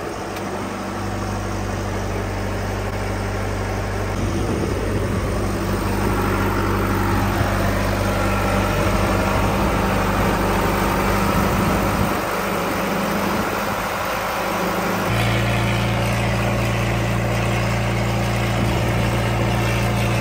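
Irrigation well's diesel power-unit engine running steadily at a constant speed. About fifteen seconds in, its hum settles onto a slightly higher, stronger pitch.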